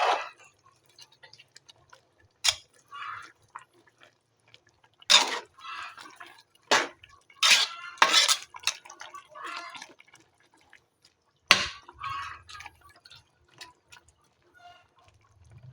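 Metal utensil clinking and knocking against a cooking pot in irregular strikes, with short ringing after the louder hits.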